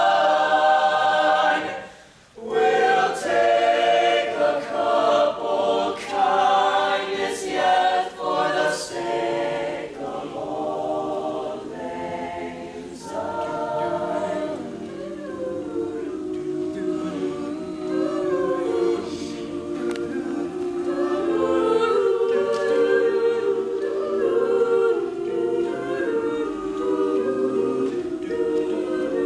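Mixed-voice choir singing in harmony. After a brief break about two seconds in, the voices move in short, rhythmic notes, then settle into longer held chords.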